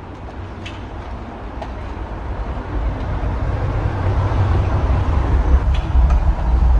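Low, rumbling noise like heavy traffic or a passing train, growing steadily louder over several seconds, with a few faint clicks on top.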